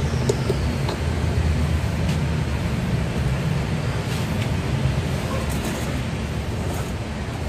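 Steady low background rumble with a few faint clicks near the start.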